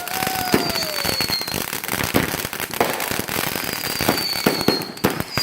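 Consumer fireworks going off: dense, irregular crackling pops, with a few thin whistles that slide slightly down in pitch.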